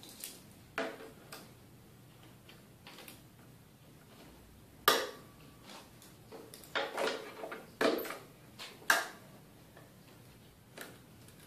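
Scattered clicks and knocks as plastic stormtrooper armor pieces and clamps are handled and clamped down on a wooden workbench. The loudest knock comes about five seconds in, and a quick run of them follows a couple of seconds later.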